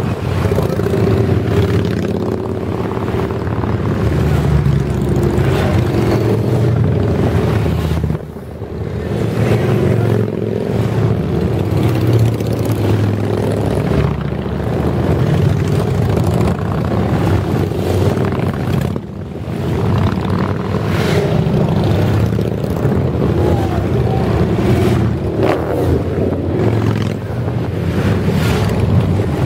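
A procession of big cruiser and touring motorcycles, one of them a three-wheeled trike, riding past one after another with their engines running. The engine noise swells as each bike goes by, with brief lulls about eight and nineteen seconds in.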